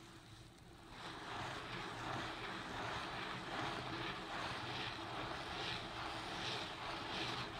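Wet, lathery scrubbing of a soap-foamed carpet rug by rubber-gloved hands, starting about a second in and going in repeated back-and-forth strokes. A faint steady low hum runs underneath.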